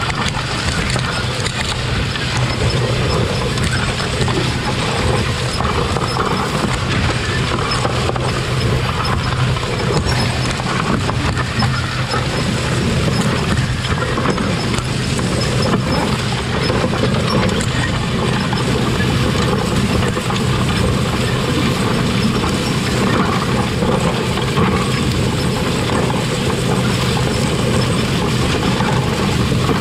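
Planter row unit running through the field, its spiked row-cleaner wheels churning through corn and wheat residue and soil, over a steady low drone of the machinery.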